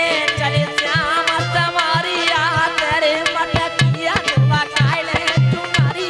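A male voice sings a Hindi devotional bhajan through a microphone, his pitch wavering in ornaments. Under it runs a harmonium's steady held chord and a dholak's two-headed drum playing a steady rhythmic beat of low strokes and sharp slaps.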